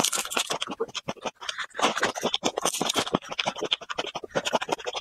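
Close-miked chewing of whole garlic cloves: a fast, irregular run of crisp crunches.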